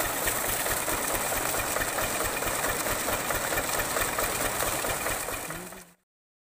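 Single-cylinder stationary diesel engine running a farm water pump with a fast, even knocking beat, mixed with the hiss of water gushing from the outlet pipe into the channel. It all cuts off suddenly near the end.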